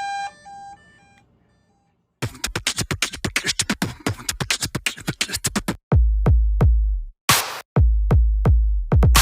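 A brief run of stepped electronic beeps, then, after about a second of near silence, an electronic hip-hop style beat comes in: fast ticking hi-hat hits, joined about six seconds in by heavy, deep bass-drum kicks.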